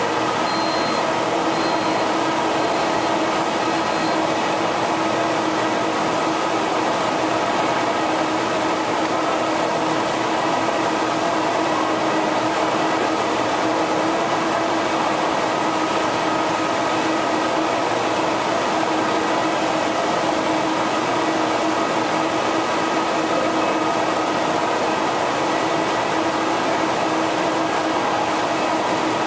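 EFI H652 wide-format flatbed printer running with a steady mechanical hum and whir. Four short high beeps, about a second apart, sound in the first few seconds.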